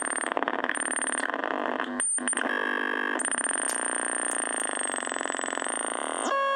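Fort Processor sound-art synth circuit putting out harsh, noisy electronic buzzing with a high whistle that cuts in and out and a brief dropout about two seconds in; near the end it switches to a clean, steady pitched tone. The circuit is still misbehaving, with its light sensor not responding, which the repairer puts down to remaining bad solder joints.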